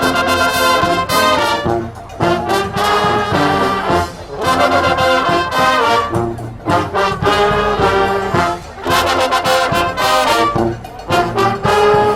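Street marching band playing live: trombones and trumpets playing loud brass phrases broken by short gaps, over percussion hits.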